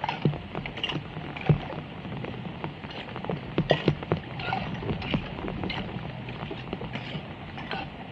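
Heavy rain falling on a flooded road, with irregular splashing and sloshing as hands dig debris out of a clogged street drain under shallow floodwater.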